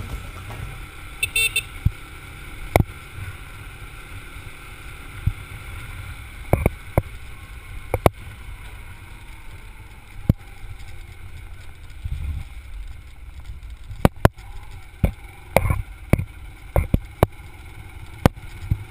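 Motorcycle riding along a dirt road, heard from a handlebar-mounted camera: a steady low engine and wind rumble with frequent sharp knocks and rattles as the bike jolts over bumps, most of them near the end.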